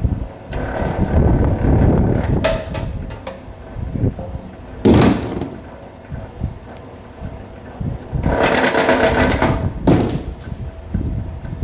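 Vevor electric wire stripper running as insulated wire is fed through its rollers and blade, in uneven noisy bursts: one from about half a second to three and a half seconds in, a short sharp one near five seconds, and the loudest from about eight to ten seconds in.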